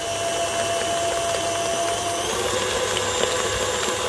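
KitchenAid Artisan stand mixer running at a fast speed, its flat beater whipping buttercream in a glass bowl: a steady motor whine over the churning of the cream. The whine's pitch shifts slightly about halfway through.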